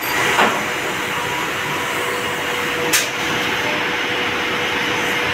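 CNC machine running: a steady whirring and hissing noise with a faint steady hum, broken by a light click about half a second in and a sharp click about three seconds in.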